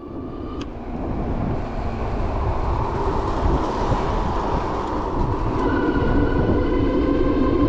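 Juiced HyperScrambler 2 e-bike riding: steady wind and tyre rumble with the rear hub motor's whine, which comes up more clearly about two-thirds of the way in.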